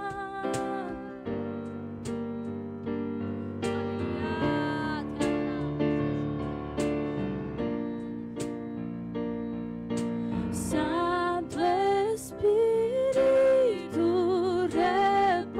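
Worship band playing a slow song: sustained Kawai keyboard chords with regular cajón hits keeping time. About ten seconds in, a woman's voice starts singing the melody again.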